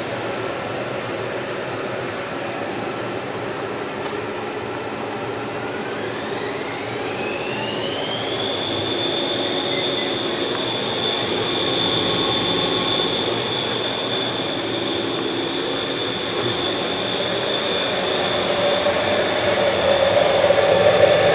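Kent 10 hp CNC bed mill running with a steady mechanical whir and an electric motor whine. A few seconds in, the whine rises smoothly in pitch over about three seconds, as the machine is brought up to a higher speed, then holds steady at the higher pitch.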